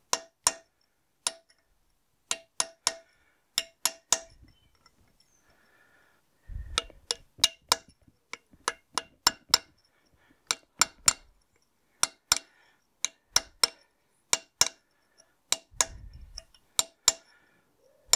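Brass punch struck repeatedly with a hammer to drive a circlip in the cast final drive housing of a David Brown 990 tractor: dozens of sharp metallic taps, each with a short ring, coming singly and in pairs at an uneven pace, with a pause of about two seconds near the middle.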